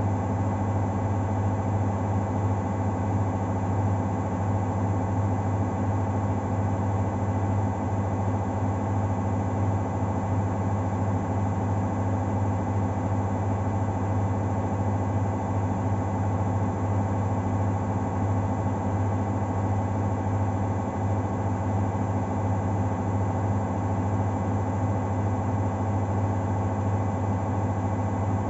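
Arctic front-loading washing machine in the final spin of a Cottons 60° wash: the drum spins at a steady speed with a steady motor hum and whir that does not change.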